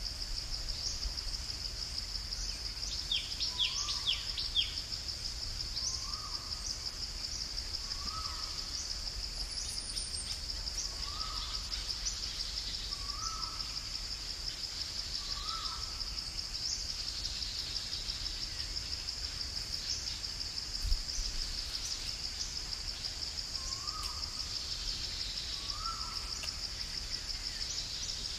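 Forest ambience: a steady, high, fast-pulsing insect drone. A short rising call recurs about every two seconds, stops for a while midway and comes back near the end, and a few quick high bird chirps come about three to four seconds in.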